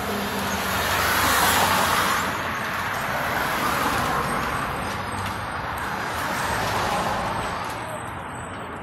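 Road traffic: cars passing one after another on the street, each swelling and fading.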